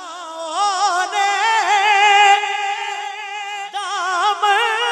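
Male naat reciter singing, drawing out one long, high melismatic note with a wide, wavering vibrato.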